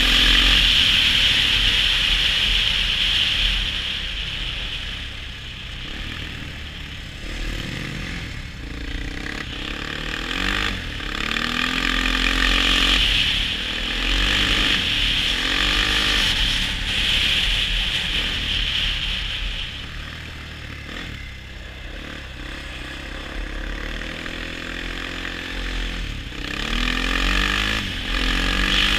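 ATV engine running under way, its pitch rising and falling several times as the throttle is opened and eased off.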